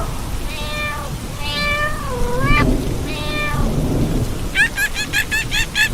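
Animal calls: three or four drawn-out, wavering calls that bend up and down in pitch. About two-thirds of the way in comes a rapid string of short, high, rising peeps, about eight a second. A steady low rumbling noise runs underneath.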